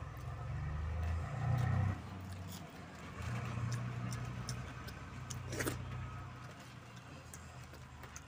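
A motor vehicle's engine running, a low hum that swells twice and then fades. Faint clicks from eating by hand come through it, with one sharper click a little past halfway.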